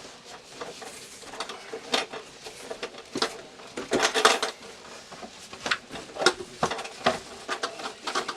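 Irregular clicks, scrapes and rattles of heavy electrical wire being pushed and worked through a tight cable run, with louder clattering bursts about four seconds in and again near six and seven seconds.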